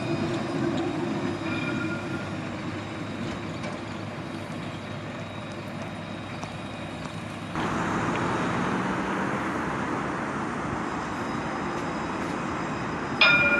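Alstom Citadis tram running, a steady rumble of wheels and traction noise that jumps louder about seven and a half seconds in. Near the end comes a short, sharp ring with several clear tones: the tram's warning gong.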